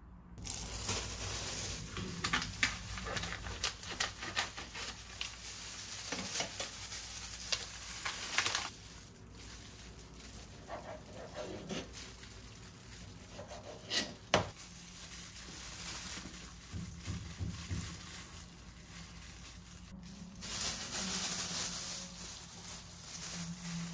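Kitchen food-prep sounds: a knife cutting fish fillets on a plastic cutting board, then gloved hands pressing the pieces into starch on a stainless steel tray, with scattered clicks and rustling and one sharp knock about halfway through.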